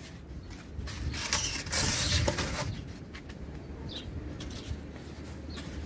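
Sheet of polystyrene foam insulation scraped and pushed into place against a metal door between wooden battens, a rasping scrape loudest from about one to nearly three seconds in, then a few light knocks and a short squeak.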